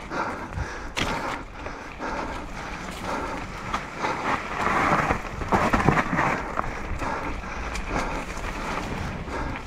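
Mountain bike descending a dirt forest singletrack: tyres rolling and skidding over dirt and leaf litter, with frequent sharp clicks and rattles from the bike over bumps, and wind rushing on the microphone.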